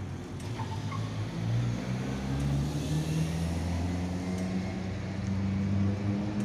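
Z3-class tram's traction motors humming as it pulls away from the stop, the hum rising in pitch as it gathers speed.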